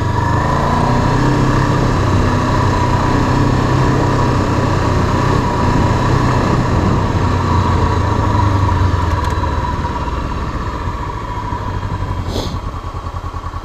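Street motorcycle's engine running under way on a dirt track, with wind rushing past. About ten seconds in the engine note drops as the bike slows, becoming a low, evenly pulsing throb, with one short sharp noise shortly after.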